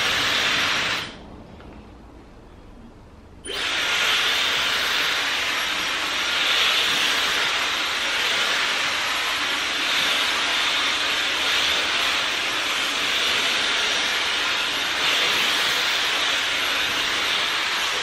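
Dyson Supersonic hair dryer blowing steadily as hair is dried, a constant rushing hiss. It cuts out about a second in and comes back about two and a half seconds later.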